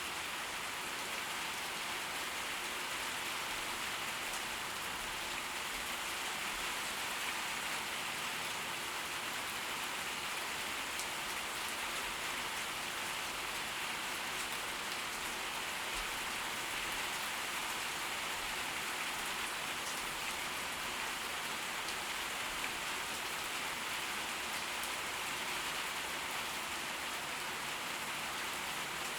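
Steady, even rain from a tropical storm falling on surfaces, with no change in intensity and no thunder.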